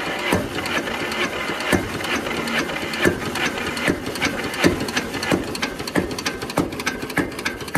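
Deutz F1L514's single-cylinder air-cooled diesel engine running on its first start after years standing, with a regular knocking beat.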